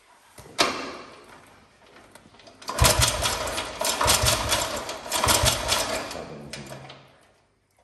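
A sharp knock about half a second in, then the 1930 Automoto's single-cylinder side-valve four-stroke engine catches and runs rough and uneven for about four seconds before dying away. The engine is struggling to start, with fuel slow to flow.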